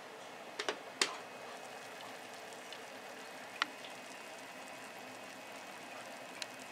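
Foil-wrapped fish packets sizzling in a frying pan with a steady hiss, while the glass lid is lifted off with a few light clicks and clinks, the sharpest about a second in, and another tap later on.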